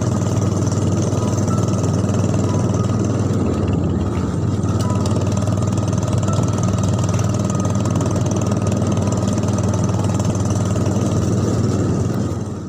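A small engine running steadily at an even speed, fading out near the end.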